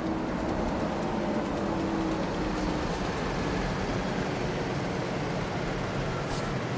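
A large truck's engine running as it drives, with a steady low rumble. A short high hiss comes near the end.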